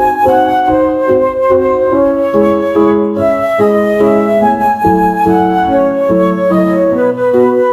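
Background music: a flute melody of held notes over soft keyboard chords.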